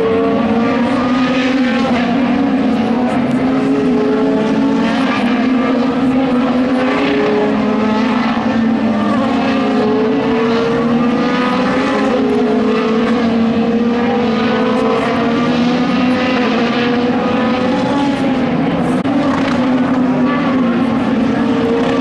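IndyCar twin-turbocharged V6 racing engines at full throttle, each engine note climbing slowly in pitch over a few seconds and then dropping at an upshift, again and again.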